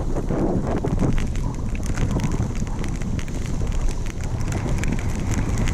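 Wind buffeting the microphone over the crackling scrape of a snowboard sliding down a snowy slope.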